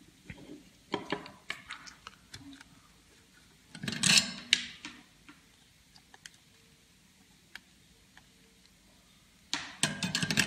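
Small clicks, taps and knocks of a circuit board, its potentiometers and wires being handled on a workbench, with a louder clatter about four seconds in and another run of clicks near the end.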